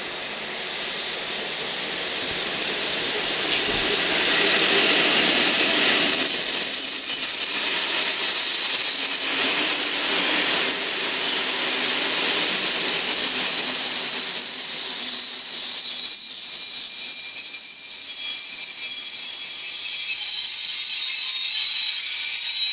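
Czech Railways class 242 electric locomotive and its passenger coaches rolling past along the platform. The sound grows louder over the first six seconds as the train draws level, then holds as a steady rumble of coaches going by, with a steady high-pitched squeal from the train over it.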